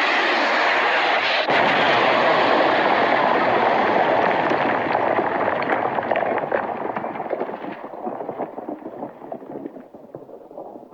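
Missile sound effect: a rushing flight noise breaks into an explosion about a second and a half in, and its crackling rumble slowly fades away.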